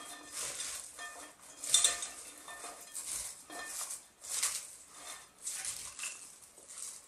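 Shredded cabbage and carrot being tossed and mixed by hand in a glass bowl: a series of short rustles, about one a second.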